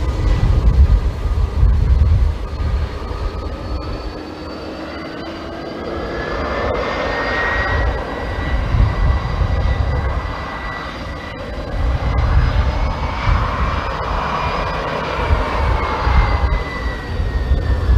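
Boeing 747-400 jet engines running, a high whine whose tones slowly rise and then fall over a low, uneven rumble.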